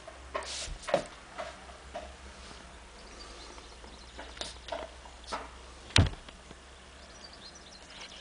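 Scattered soft rustles and light clicks over a low steady hum, with one sharp knock about six seconds in.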